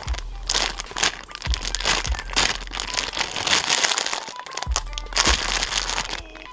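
Plastic crinkling and rustling in irregular bursts as something wrapped is handled, with a few soft handling thumps.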